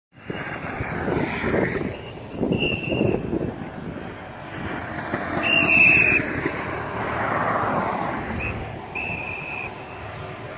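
A motorcycle and then a car passing close on a road, engine and tyre noise swelling and fading, with three short high-pitched tones; the loudest moment is about six seconds in as the car goes by.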